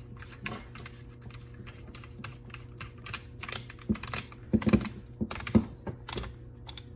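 Irregular small clicks and knocks of Benelli Super Black Eagle 3 shotgun parts being handled and fitted back together, with a few louder knocks about four to five and a half seconds in.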